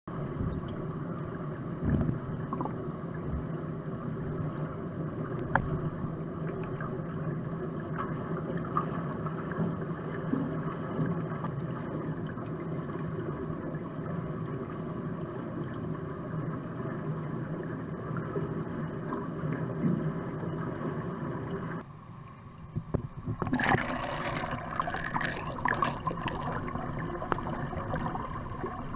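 Underwater swimming-pool sound picked up by a submerged camera: a steady muffled churning wash with a low hum. About three quarters of the way through it dips briefly, then comes back louder and splashier as a swimmer's freestyle strokes and kicks pass close by.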